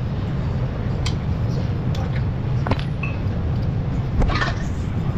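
Several sharp metal clinks and knocks as a car's front strut is worked loose and pulled out of its steering knuckle, over a steady low workshop hum.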